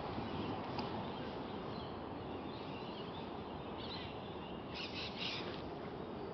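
Birds calling with short chirpy calls, a few times about halfway through and again near the end, over a steady hiss of creek-side ambience.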